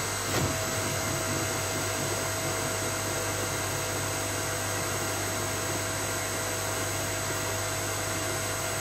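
Inverter-driven electric motor and hydraulic pump (a salvaged BendPak vehicle-lift pump) running steadily at 50 Hz: a low, even hum with a faint steady whine above it.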